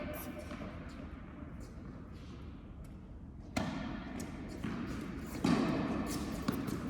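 Tennis balls knocked by rackets and bouncing on an indoor court, a few sharp knocks with a hall echo, starting about halfway in, amid people's voices.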